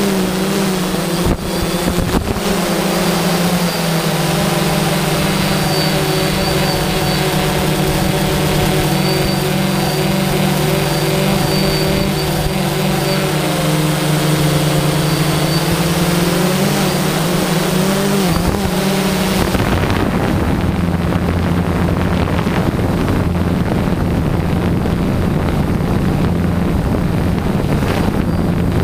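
DJI Phantom quadcopter's motors and propellers heard from the onboard camera: a steady whine whose pitch shifts slightly in steps. About two-thirds of the way through, the tone drops lower and a rushing noise comes in.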